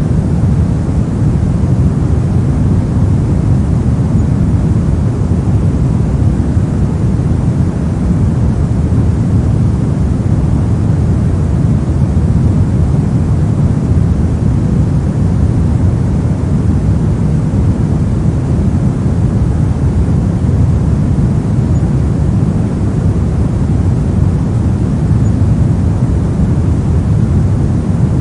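Steady, unvarying pink noise, strongest in the low end and thinning out toward the highs.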